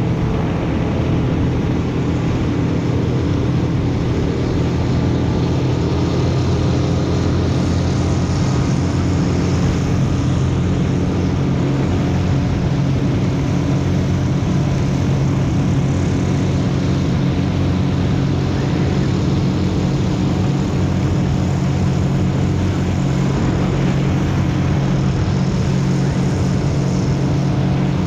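Motorboat engine running steadily at cruising speed, a continuous even drone.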